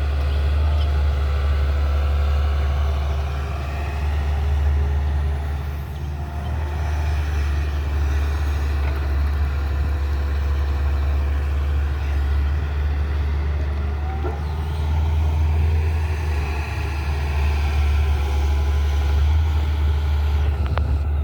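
Tata Hitachi excavator's diesel engine running steadily as a low drone while the machine works.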